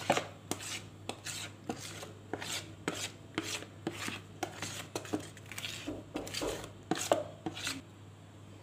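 Spatula scraping thick brownie batter out of a plastic mixing bowl into a square metal baking pan, in short repeated strokes about two a second that stop a little before the end.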